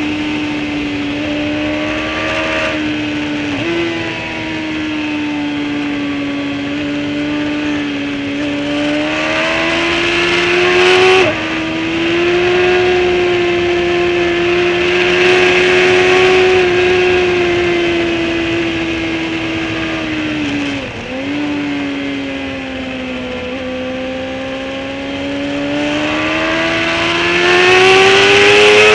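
Onboard sound of a track-day motorcycle at speed: the engine runs steadily at high revs, its pitch rising and falling with the throttle, under a constant rush of wind. The pitch dips sharply twice, and the engine is loudest and highest near the end.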